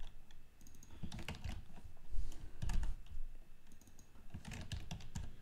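Typing on a computer keyboard: irregular clusters of keystrokes with short pauses between them.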